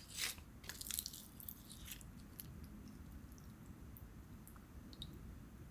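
Crisp sheets of nori seaweed crackling and rustling as chopsticks press them down into ramen broth, in the first two seconds. After that, only a few faint ticks from the chopsticks.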